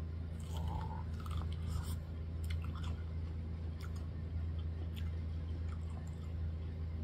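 Biting into and chewing a mouthful of corn on the cob close to the microphone: irregular small crunches and wet mouth clicks, busiest in the first few seconds, over a steady low hum.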